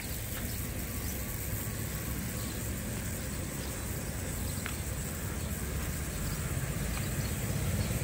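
Outdoor street ambience: a steady low rumble that grows a little louder near the end, with a faint tick about halfway through.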